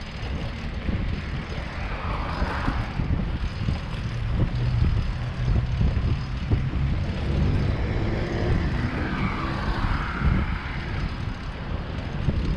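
City street traffic rumble mixed with wind buffeting on the microphone of a moving bicycle, with two louder swells, about two seconds in and again around eight to ten seconds, like vehicles passing.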